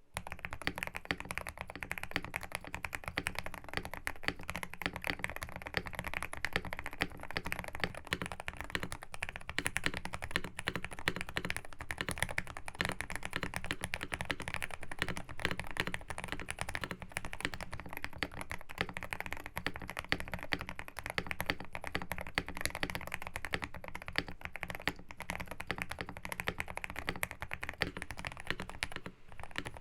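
Continuous fast typing on a GMK67 custom mechanical keyboard with lubed JWK Black linear switches, a polycarbonate plate and a tape mod: a dense, unbroken stream of keystrokes.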